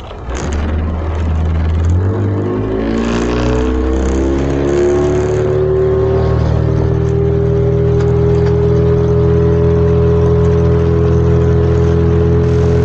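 Speedboat engine revving up, its pitch rising over a few seconds, then running steadily at speed.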